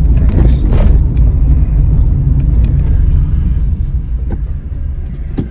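Low rumble of a car's engine and road noise heard from inside the cabin while driving slowly, easing off about four seconds in, with a few light knocks near the end.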